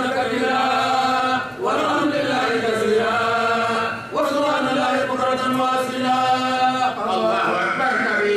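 A single voice chanting in long, drawn-out held notes, in phrases of about two to three seconds with short breaks between them.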